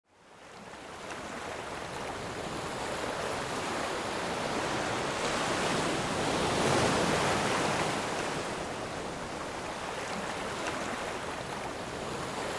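A steady rushing noise that fades in at the start and swells about halfway through before easing off.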